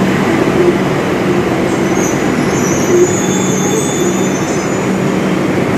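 Metro train pulling into the platform and slowing to a stop, a steady rumbling run with a low hum and a thin high squeal for a second or so in the middle as it slows.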